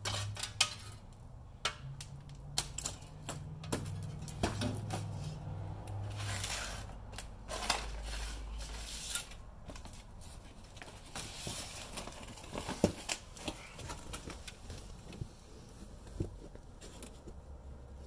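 Scattered metal clinks, clanks and scrapes as an old Ford Super Duty front wheel hub and its dust shield are worked off the splined axle shaft and set down.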